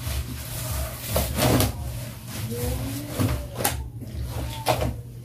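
Clothes being hand-washed in a plastic basin of soapy water: wet fabric scrubbed, squeezed and lifted by hand, making irregular swishing and splashing strokes.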